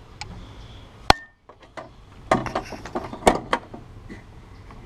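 Sharp clicks and knocks from handling a MIG welder's inside switch and housing: one loud click about a second in, then a cluster of several clicks between about two and three and a half seconds in.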